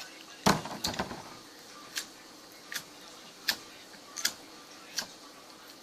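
Slime being poked, giving short sharp popping clicks about once every three quarters of a second, after a louder knock about half a second in.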